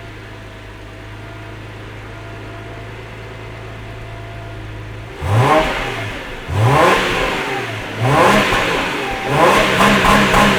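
Subaru 3.6R flat-six engine breathing through a Nameless Performance axle-back muffler. It idles steadily for about five seconds, then the throttle is blipped four times about a second and a half apart, each rev rising sharply in pitch, and the last rev is held longer.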